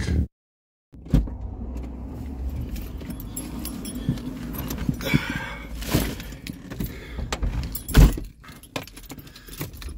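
Keys jangling, a bag rustling and small clicks as someone settles into a car seat, over a low steady rumble, with one sharp thud about eight seconds in.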